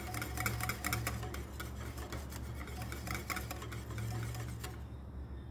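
Wire whisk beating a thin yoghurt and egg-white sauce in a bowl: rapid clicking and scraping of the wires against the bowl's sides, stopping near the end.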